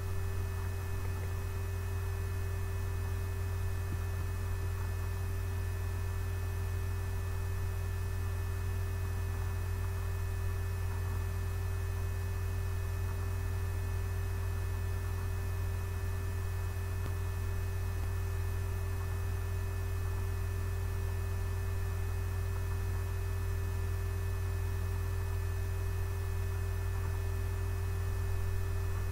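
Steady low electrical hum with a faint even hiss and a few constant thin whining tones above it, unchanging throughout.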